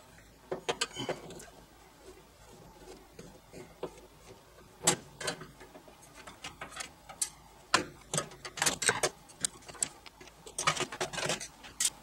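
Screwdriver backing out the screw on the underside of an over-the-range microwave, then the plastic light cover being worked open: scattered small metal and plastic clicks and ticks in several short clusters.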